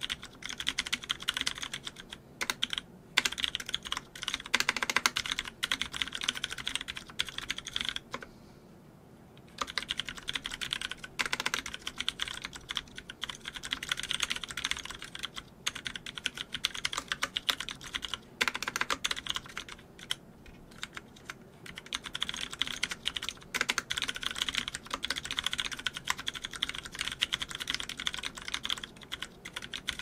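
Fast typing on a TGR Alice ergonomic mechanical keyboard with a brass plate, 63.5 g Ergo Clear tactile switches (lubed and filmed) and GMK 9009 keycaps: a dense, steady stream of key clacks. The typing stops briefly about eight seconds in, then carries on.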